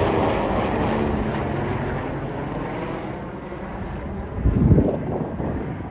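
Helicopter flying overhead and away, its rotor and engine noise fading steadily. A short burst of low noise, the loudest moment, comes about four and a half seconds in.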